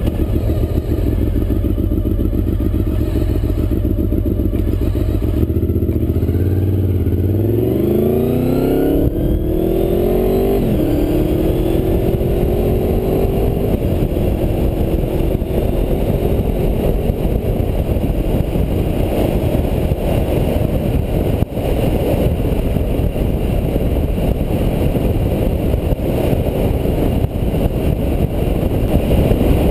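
Honda VFR motorcycle's V4 engine accelerating hard: the revs climb, drop sharply at a gear change about ten seconds in, then climb again. It then settles into a steady rush of engine and wind noise at speed.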